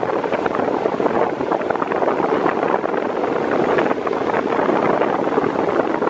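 Ventisol New 50 cm wall fan, fitted with a Ventisol Turbo 6 table-fan blade, running at top speed: a loud, steady rush of air blowing at about 33 km/h, buffeting the microphone.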